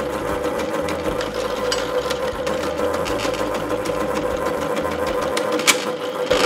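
Robot Coupe CL 50 Gourmet vegetable preparation machine running with a steady motor hum while celeriac is pressed down its hopper with the pusher and diced. Scattered clicks run through it, with a couple of sharper knocks near the end.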